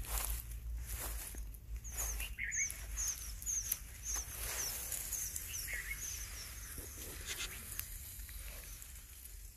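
A bird giving a quick series of short, high chirps, over wind rumble on the microphone and the rustle of cloth and dry grass.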